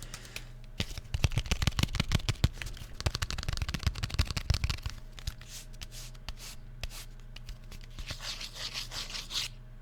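Fingers tapping and scratching on a trading card set. A fast run of small sharp clicks lasts a few seconds, then the taps thin out, with a brief scratchy rustle near the end.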